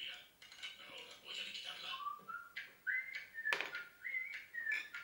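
Clear whistled notes, each held briefly and stepping up and down in pitch like a little tune, starting about two seconds in.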